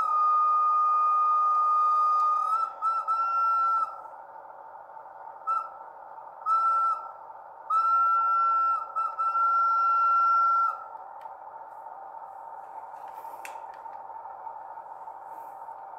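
The sound decoder in an MTB HO-scale model of a CFR 060-DA diesel locomotive sounds its horn through the model's small speaker. There is one long steady blast, then several shorter blasts, which end about eleven seconds in. A steady hum runs underneath.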